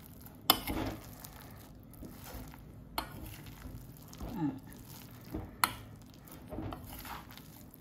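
Metal spoon stirring a thick paste of chopped lotus root and plant-based meat in a stainless steel bowl. The stirring is soft, broken by three sharp clinks of spoon against bowl, the first and loudest about half a second in.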